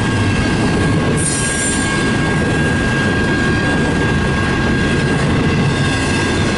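Double-stack intermodal freight cars rolling past, a steady loud rumble of steel wheels on rail with a thin, steady squeal running through it. A brief high screech comes about a second in.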